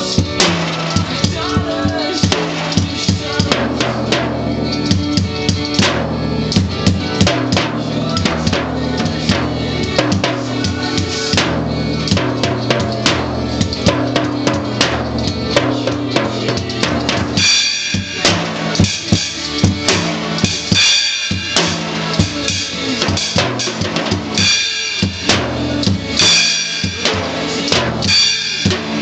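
A toddler playing a drum kit, hitting the bass drum, snare and cymbals in an uneven rhythm, over a recorded pop-rock song. Cymbal hits get more frequent in the second half.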